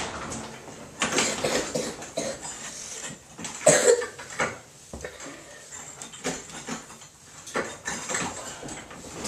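Irregular light knocks, clinks and rattles of broken glass and debris from a TV being smashed apart, with no heavy hammer blow.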